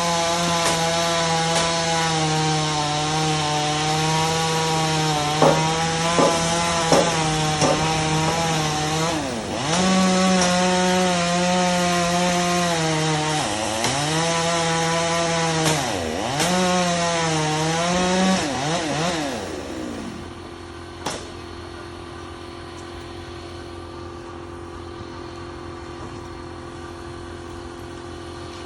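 Two-stroke chainsaw running at full throttle, its pitch dipping and recovering several times as the chain bogs in the wood and speeds up again. About twenty seconds in the full-throttle sound falls away, leaving a quieter steady hum.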